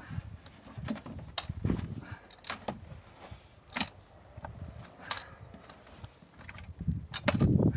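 Hand post-hole digger being worked in a hole to lift soil: irregular metallic clinks and knocks, with heavier thuds and scraping near the end.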